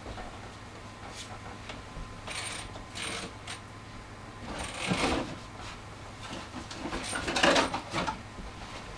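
Small objects being handled and put down on a wooden workbench: three short spells of clattering and rustling, the loudest near the end, over a steady low hum.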